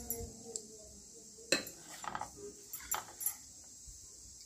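A spoon clinking and scraping against a stainless-steel idli mould plate as thick batter is dropped into its cups: a few light separate clinks, the sharpest about a second and a half in.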